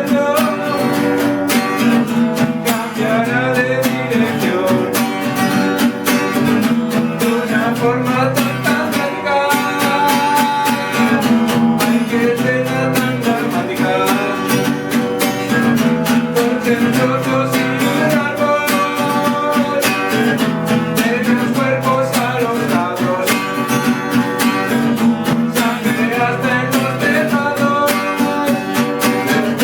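Music with guitar playing throughout.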